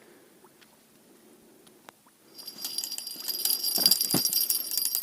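Small bite-alarm bell on a ledger fishing rod jingling rapidly, starting about halfway in, with a couple of dull knocks near the end.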